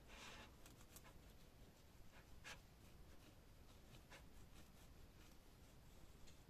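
Faint rubbing and scratching as the CPU's surface is wiped dry, with a few small scrapes or clicks.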